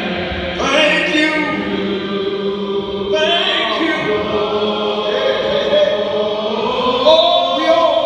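Several voices singing together in a slow song with long held notes.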